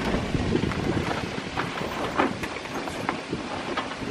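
Wind buffeting the microphone on board a sailboat, a steady rushing noise with scattered light knocks and clicks.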